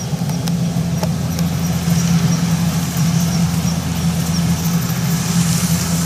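Kubota DC70 combine harvester's diesel engine and machinery running steadily at work, a constant low drone, with a faint high ticking about three times a second that fades out in the second half.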